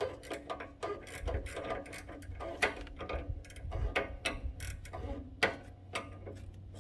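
Ratcheting wrench clicking in irregular runs as a sway bar end link nut is worked loose.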